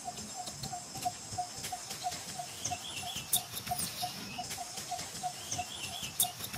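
Newborn macaque giving short, wavering, high squeaky cries, twice, as it is pulled about on dry leaves. Under it run a steady chirping pulse of about five a second and the rustle and crackle of leaf litter.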